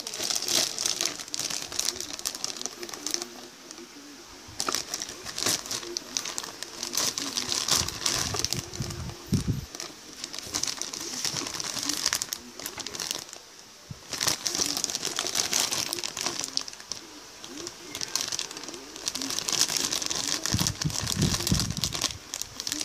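Clear plastic bags holding plastic model-kit runners crinkling and rustling as they are handled, coming in bursts that swell and ease, with a few soft knocks as the parts are moved.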